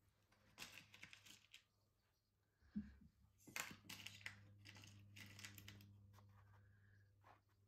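Faint clicking and rattling of small glass beads being picked out of a plastic compartment organizer, in two clusters, with one soft knock about three seconds in.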